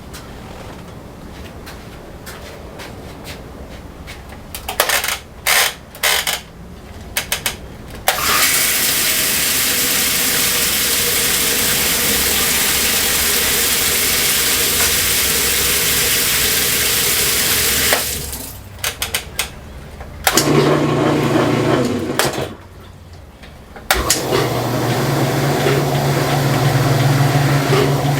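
Whirlpool direct-drive washing machine running: after a few knocks, water rushes into the tub with an even hiss for about ten seconds, then the motor runs with a steady low hum over the sound of the drum working.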